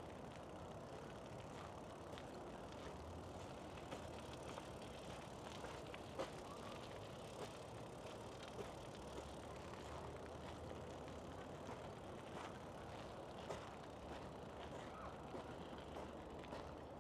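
Outdoor city ambience: a steady hum of distant traffic, with soft light clicks every second or so.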